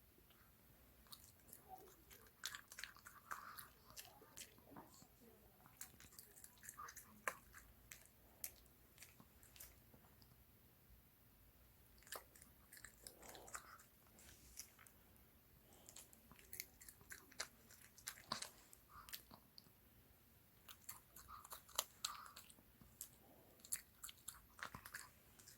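A pet chewing and biting a boiled egg: faint, irregular wet clicks and smacks of its jaws and mouth.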